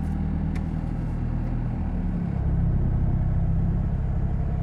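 Toyota Innova engine held at about 1000 rpm, giving a low brr drone that shakes the body; its note shifts about two seconds in. The mechanic puts the drone down mainly to weak engine and gearbox mounts passing engine vibration into the body.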